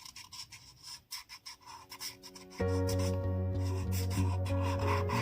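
Short, irregular scratchy strokes of a black permanent marker drawing on watercolour paper; about halfway through, background music with steady held notes comes in over it.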